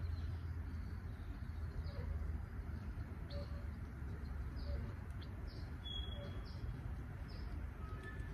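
Small bird chirping outdoors: short, high chirps repeating roughly once a second over a steady low rumble.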